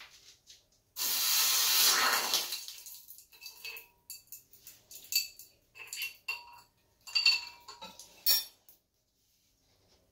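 Red-hot silver bead quenched in water: a sudden sizzling hiss about a second in that dies away over about two seconds, followed by a series of light metallic clinks and rings of metal against a dish.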